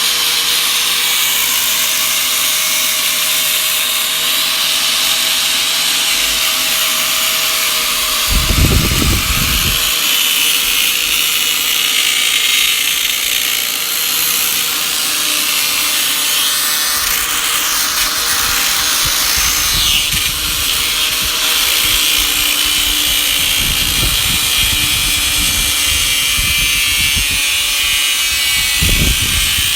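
Electric grinder with a metal cutting disc running steadily, shaving down a metal part with a high whine and a hiss of metal being ground. A few brief low thumps come through about nine seconds in and again near the end.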